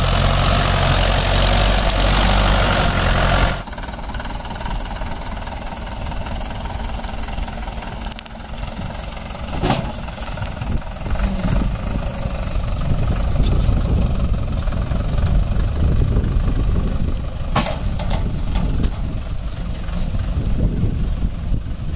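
Mahindra 575 DI tractor's diesel engine running under load as it hauls a trailer heaped with soil over grassy ground. It is loud and dense for the first few seconds, then drops abruptly to a lower, uneven rumble, with two sharp knocks, one about ten seconds in and one near eighteen seconds.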